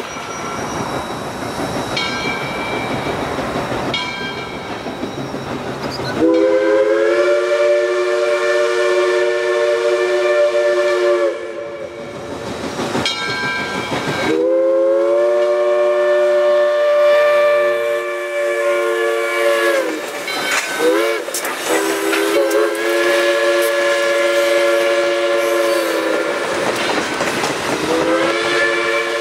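A locomotive horn sounding a chord of several notes over a passing train. After a few seconds of rolling noise it gives two long blasts, a short one and another long blast, the grade-crossing warning pattern, and starts another blast near the end.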